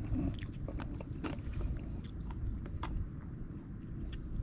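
Someone eating crisp fried white perch: irregular, sharp crunching clicks from chewing and handling the fish, over a steady low rumble in the background.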